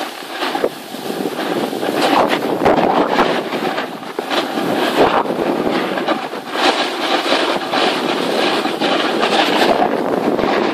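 Snowboard edges and base scraping over hard-packed groomed snow while riding downhill, with wind on the microphone. The scrape rises and falls in loudness unevenly.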